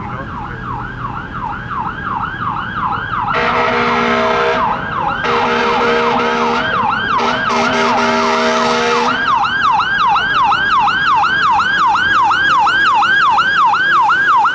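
Fire engine's electronic siren on a rapid yelp, sweeping up and down about three to four times a second, with three long blasts of a steady multi-tone horn between about three and nine seconds in.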